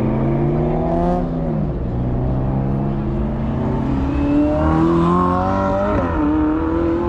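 Car engine revving as it leaves a car show. The pitch climbs and then falls off about a second and a half in, rises again from about four seconds in, and drops sharply near six seconds.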